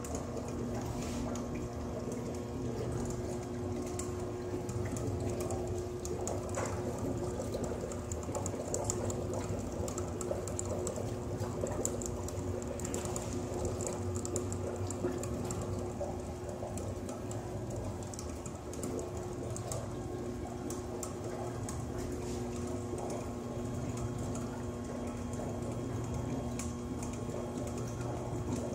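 Fluid-air displacement gravity generator rig running in its water tank: a steady machine hum under a constant patter of small ticks and clicks and bubbling water.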